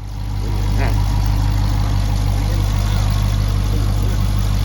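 Car V8 engine idling steadily with a deep, even low hum, cutting in suddenly at the start.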